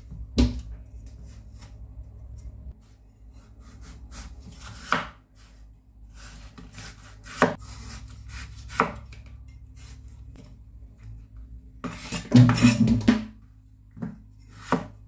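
Chinese cleaver cutting a wax gourd on a wooden cutting board: single sharp knocks of the blade on the board every second or two while the skin is sliced off, with a quick run of chops about twelve seconds in, the loudest part.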